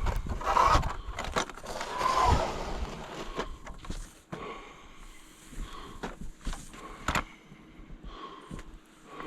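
Irregular crunches and scrapes in deep fresh snow, louder near the start and around two seconds in.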